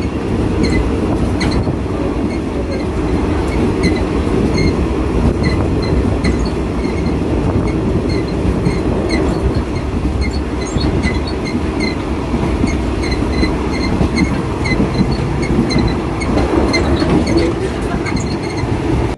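Passenger train carriage running along the track, heard from inside near the end doorway: a loud, steady rumble of wheels on rails with scattered short high-pitched squeaks and rattles.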